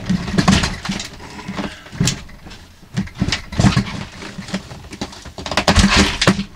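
Rotten wooden cabin cabinet unit creaking, cracking and scraping as it is pulled down off the wall, in a series of short loud bursts. The loudest comes near the end, as the unit breaks free.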